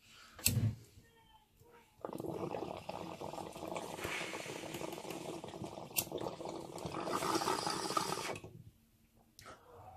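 Water bubbling in a glass bong as smoke is drawn through it, a steady bubbling that starts about two seconds in and runs for about six seconds, with a single sharp click partway through.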